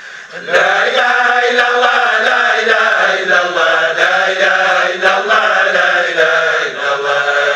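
A group of men chanting together in unison, a sustained Sufi dhikr recitation, starting about half a second in after a short pause.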